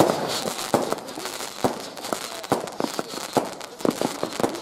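Aerial fireworks going off: a string of irregular sharp bangs, two or three a second, as shots launch and burst, with crackling in between.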